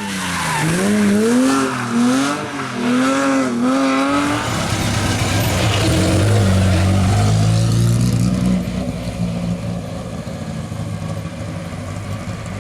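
Rally car engine revving hard on a special stage: its pitch swings up and down quickly several times in the first four seconds as the throttle is worked, then holds a lower, steadier note and fades away.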